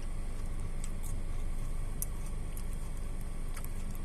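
Steady low rumble inside a car's cabin from the engine idling, with a few faint ticks.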